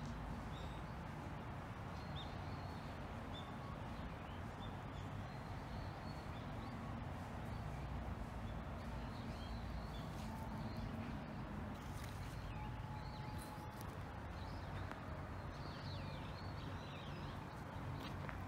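Outdoor ambience: small birds chirping faintly over a steady low rumble, with a couple of short whistled notes and a few light rustles in the second half.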